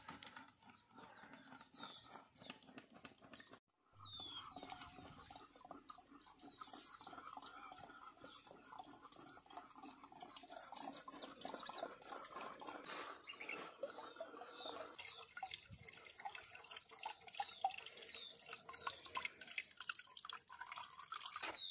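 A soaked spray mix being strained through a plastic mesh strainer into a plastic bucket: a stick scrapes and stirs in the mesh with small clicks, and the liquid drips and trickles into the bucket. Birds chirp faintly in the background.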